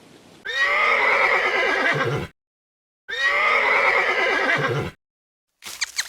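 A horse whinnying twice, the same call of about two seconds each time with a short gap between. A quick run of short, sharp calls starts near the end.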